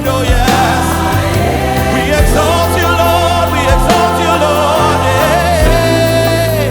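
Live gospel worship song: lead singers and choir singing over a band of keys, bass and drums.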